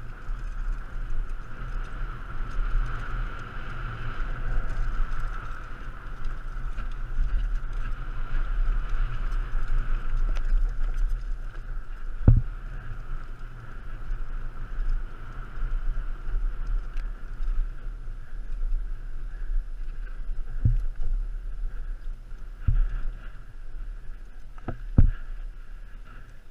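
Wind rush and trail noise from a mountain bike descending a dirt singletrack, heard on a helmet-mounted camera, with a steady high whirr that fades in the second half. Sharp knocks from bumps in the trail come about halfway through and three times near the end, the loudest about halfway through.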